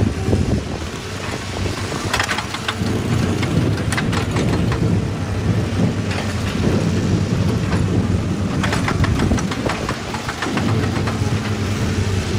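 Excavator's diesel engine running steadily, with several bursts of clattering and scraping.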